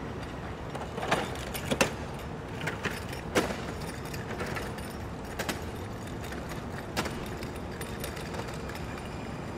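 San Diego Trolley light rail train approaching slowly on street-running track, with a steady low hum and a handful of sharp metallic clicks and clanks spread through.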